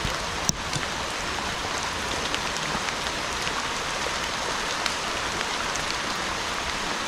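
Heavy rain falling steadily, with scattered sharp ticks of individual drops striking close by.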